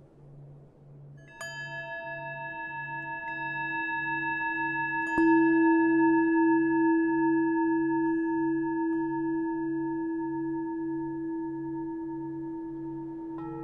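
Meditation music of struck singing bowls ringing out with a long, slowly fading, wavering tone over a low drone that pulses about one and a half times a second. One bowl sounds about a second in, a louder one about five seconds in, and another near the end.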